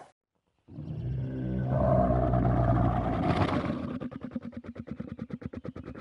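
Camel calling: a long, low groaning call that starts under a second in. About halfway through it turns into a fast, even series of rattling pulses that slowly fade.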